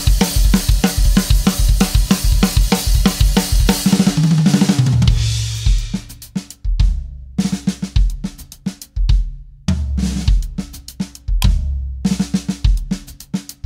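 Sonor Force 3001 drum kit being played. A busy groove of bass drum, snare and cymbals leads into a fill down the toms about four seconds in. After that the playing turns sparser, with gaps between the bass drum and tom strokes.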